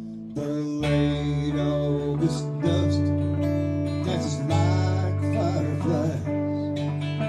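Live country-rock band: strummed archtop acoustic guitar, electric bass, drums and electric guitar. A held chord fades out, then about half a second in the band comes back in with a bass line that moves every couple of seconds.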